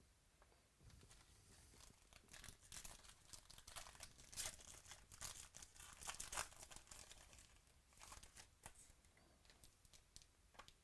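Trading-card pack wrapper being torn open and crinkled by hand, a run of short crackles that is loudest in the middle and dies down near the end.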